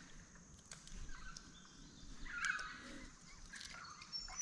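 A bird calling faintly a couple of times, with a few light clicks and knocks.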